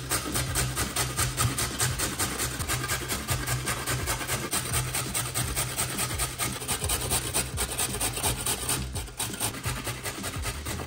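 A carrot being grated on a stainless steel box grater that stands on a wooden board: quick, even rasping strokes, about four to five a second.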